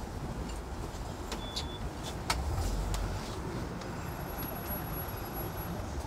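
Road traffic rumbling steadily, heard from the top deck of a tram stopped at a stop, with a car driving past. A single sharp click about two seconds in.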